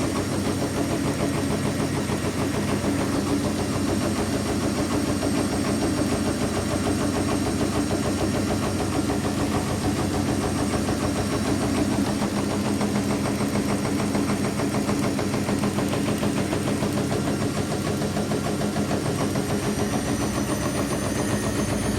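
Washing machine spinning, with a steady motor hum and a fast, fluttering vibration from the drum. Over the last couple of seconds a high motor whine rises in pitch as the drum speeds up.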